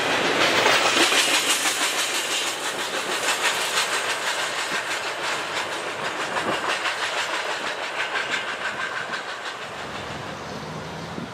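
Double-stack intermodal freight train rolling past and away, its wheels clicking rhythmically over the rails, the sound fading steadily as the last cars recede.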